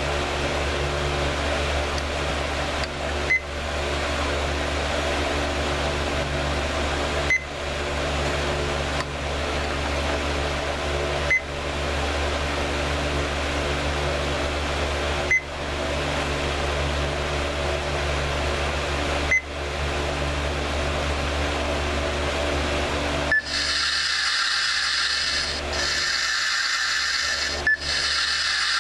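Electronic sound effect from the reworked sound board of a Klingon power leech prop: a steady low hum, broken about every four seconds by a brief drop-out and a short beep as the loop restarts. About 23 seconds in it switches to a brighter, wavering electronic tone.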